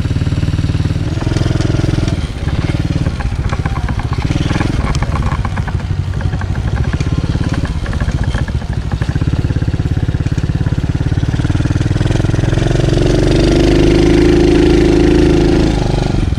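TaoTao DB14 110cc four-stroke single-cylinder dirt bike engine running while being ridden, its revs rising and falling. Near the end the revs are held higher and the engine runs louder for a few seconds.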